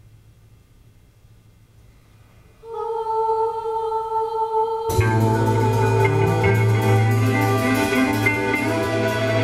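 Low stage hum, then about three seconds in a single held note begins. About two seconds later a live band comes in, with drum strikes, a low bass and singing.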